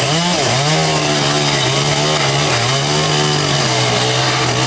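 Gasoline chainsaw running loud and steady while cutting through wooden planks, its engine pitch dipping briefly twice as the chain bites into the wood.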